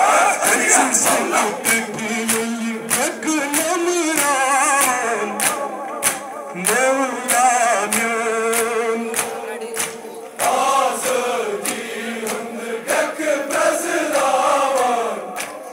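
Crowd of men chanting a Kashmiri noha, a Muharram lament, in chorus, with repeated sharp slaps of chest-beating (matam) about two or three times a second.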